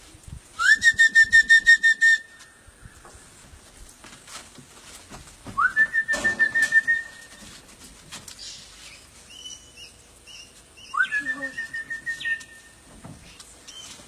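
A whistled call to bring in parrots, sounded three times about five seconds apart. Each call is a quick upward slide into a held, warbling trill lasting about a second and a half.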